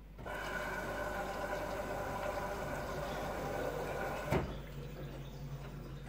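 LG F4J5TN7S front-loading washing machine taking in water at the start of a quick wash: a steady rush of water starts suddenly just after the start. About four seconds in there is a single knock, after which the rushing falls away.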